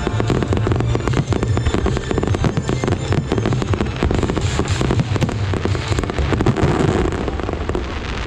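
Firecrackers and fireworks going off in a dense, continuous run of rapid cracks and bangs, a firecracker salute.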